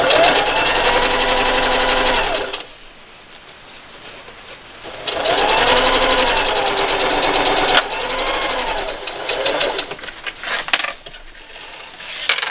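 Domestic electric sewing machine running a straight stitch in three runs: about two and a half seconds, a pause, then about three seconds followed straight away by a shorter run, the motor's pitch rising and falling with each. Near the end come scattered clicks and fabric handling.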